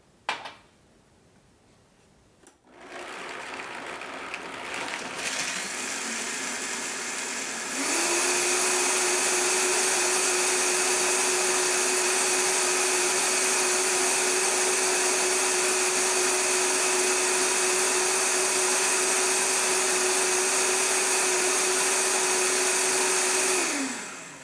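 Vitamix blender blending soaked almonds and water into almond milk. After a short click, the motor starts about three seconds in and climbs through lower speeds, then runs loud and steady at high speed for about sixteen seconds before winding down and stopping near the end.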